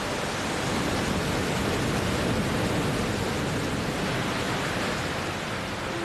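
Iguazú Falls: a steady roar of heavy water pouring down the cascades.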